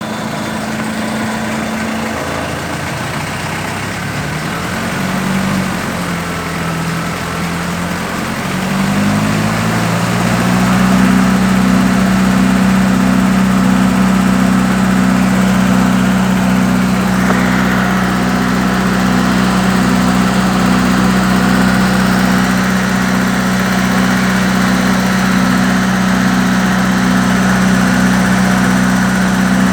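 Isuzu 4FG1 2.4-litre inline-four engine running. Its speed shifts during the first ten seconds or so, then it settles to a steady idle. The owner hears a ticking after adjusting the valve clearances to 0.25 mm intake and 0.35 mm exhaust.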